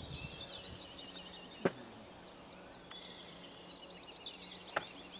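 Songbirds chirping and singing around the water, with a fast high trill starting about four seconds in. Two sharp clicks stand out, one a little over a second and a half in and one near the end.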